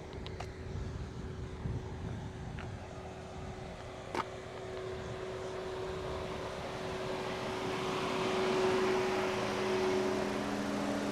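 A road vehicle driving past, its noise building to a peak about eight seconds in over a steady low hum. Wind buffets the microphone at the start, and there is one sharp click about four seconds in.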